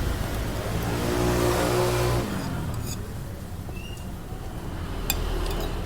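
A motor vehicle passes on the road, its engine loudest in the first two seconds and then fading into steady traffic noise. A few light clicks come about five seconds in.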